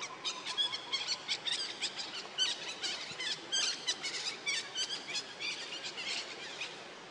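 Rapid, high-pitched chirping and squeaking calls from an animal, several notes a second, some sliding down in pitch, stopping shortly before the end.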